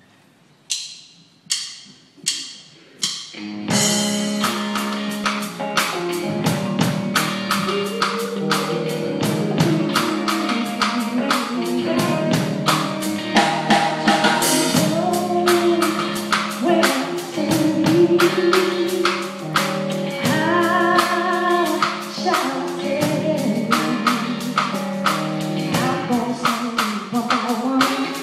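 Live gospel praise band: four sharp, evenly spaced hits count the song in, then the full band comes in at once with drum kit keeping a steady fast beat, guitar and singing.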